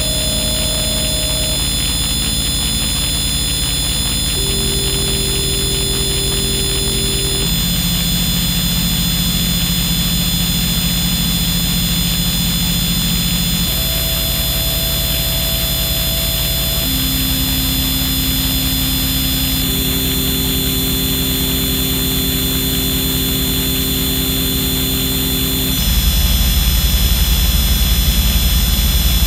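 Noisy electronic drone music: a dense, buzzing bed over a fast low pulse, with steady held tones switching on and off every few seconds. It gets louder and heavier in the bass about 26 seconds in.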